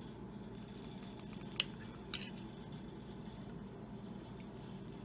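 A metal fork cutting down through a slice of moist cake and knocking against the plate: one sharp clink about one and a half seconds in, a fainter one about half a second later and a small tick near the end, over a faint steady room hum.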